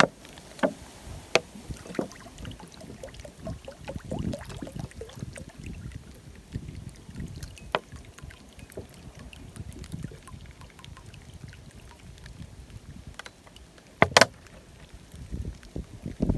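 Gusty wind buffeting the microphone in an irregular low rumble, with scattered small clicks and one loud sharp knock about 14 seconds in.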